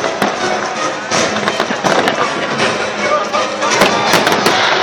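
Fireworks going off: many sharp bangs and cracks in quick succession over a dense crackling hiss, with music underneath.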